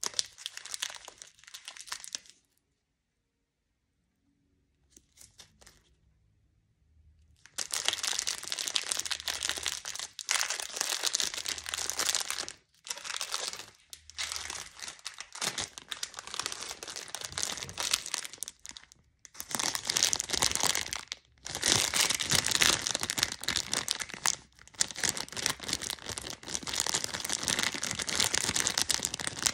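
Clear plastic cellophane candy wrappers crinkling as they are handled. There is a short crinkle at first, a few seconds of near quiet, then almost continuous crinkling with brief breaks.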